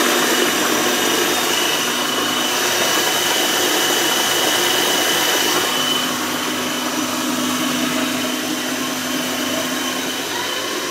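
Moulinex electric blender running steadily as it purées chopped vegetables. Its motor whine settles a little lower about halfway through.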